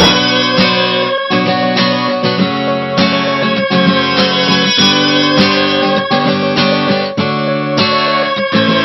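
Music: an acoustic guitar strumming chords in a steady rhythm, about two strums a second.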